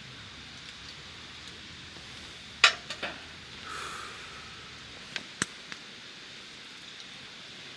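Cookware and utensils being handled for camp cooking: one sharp loud clink about two and a half seconds in, a few lighter knocks and a short scrape, then three quick clicks a little after five seconds, over a steady faint background.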